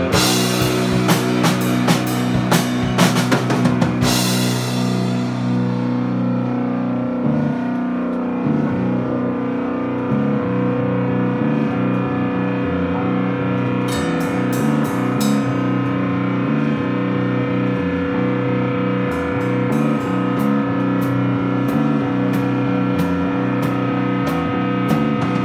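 Live rock band jamming on electric guitar, electric bass and drum kit. The drums play hard for the first few seconds and end on a ringing cymbal crash, then the guitars carry on with held, shifting notes, and light, steady cymbal taps come back for the last few seconds.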